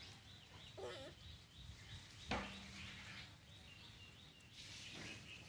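Quiet outdoor ambience with faint scattered sounds: a short faint call about a second in, then a single sharp click a little past two seconds.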